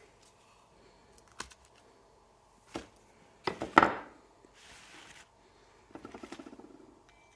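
Metal blade prying at the seal in a Ford brake caliper bore: a few sharp clicks and scrapes, then a loud cluster of metal knocks about halfway in. After that comes a brief rustle and a fast rattle near the end.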